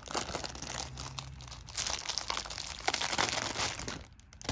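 Plastic shrink-wrap crinkling and tearing as it is pulled off a deck of game cards, a dense crackle that dies down about four seconds in.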